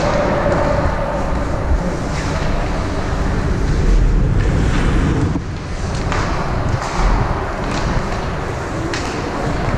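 Ice hockey arena noise during play: a steady wash of crowd and rink sound with a few sharp clacks of sticks and puck scattered through it.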